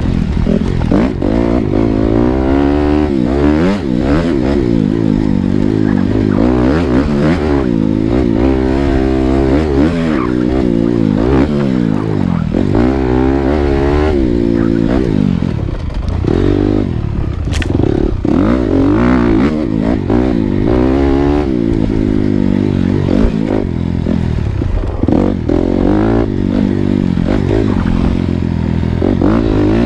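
Dirt bike engine being ridden off-road, the revs rising and falling again and again as the throttle is worked, with occasional clattering knocks.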